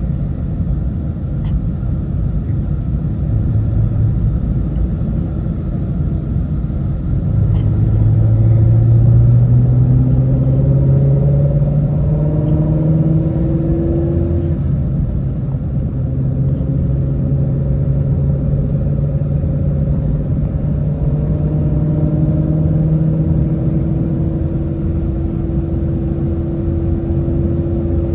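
Shelby GT350's 5.2-litre flat-plane-crank V8 heard from inside the cabin while driving, over a constant low road rumble. About eight seconds in the engine note climbs steadily under acceleration for several seconds, then settles to a steady cruising note.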